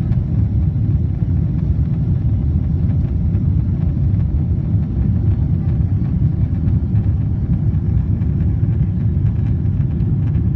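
Boeing 777 jet engines running at takeoff power: a loud, steady, low rumble.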